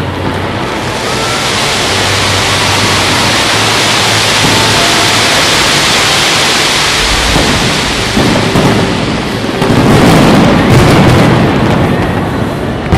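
Large fireworks display: a dense hiss of bursting fireworks builds over the first seconds, then louder, deeper bangs come from about ten seconds in.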